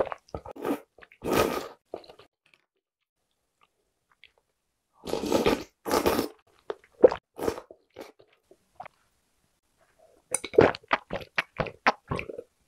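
Close-up eating sounds of noodle soup: two long slurps from a spoonful of noodles and broth, about a second in and about five seconds in, with short wet chewing clicks between. Near the end, a quick run of gulps as water is drunk from a pitcher.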